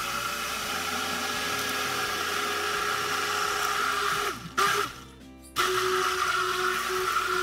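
Hand (immersion) blender motor running steadily with a high, even tone, whipping egg and oil into mayonnaise in a plastic beaker. It stops a little after four seconds in, gives one short pulse, and starts again about a second later.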